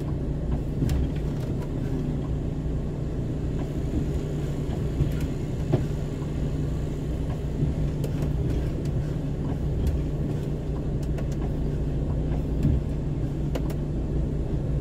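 Lorry's diesel engine running steadily with a low hum, with a couple of light knocks.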